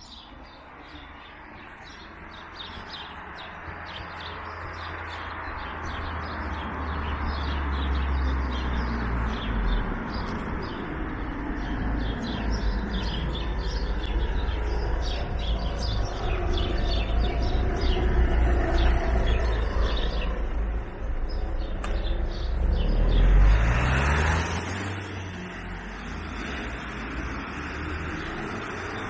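Street ambience with small birds chirping, while a road vehicle grows steadily louder, passes close by about three quarters of the way through with a falling pitch, then fades away.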